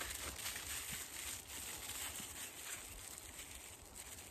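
Faint rustling and crinkling of a mail package's contents and wrapping being handled, with a few light ticks over a low steady rumble.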